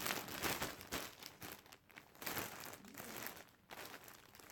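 Parcel packaging rustling and crinkling in irregular bursts as items are pulled out of a delivery package.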